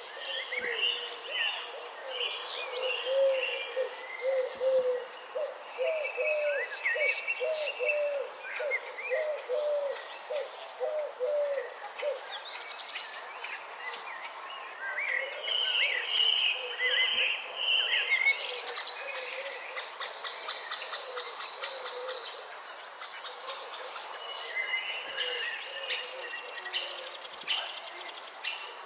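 Nature ambience: a steady, high insect drone runs under assorted birds chirping and calling. From about four seconds in, a run of short, evenly spaced low calls repeats for several seconds.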